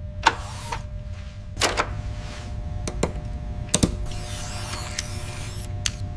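Mechanical sound effects: a steady low hum with a faint whirring tone, broken by sharp clicks about four times, and a hiss of air lasting about a second and a half starting about four seconds in.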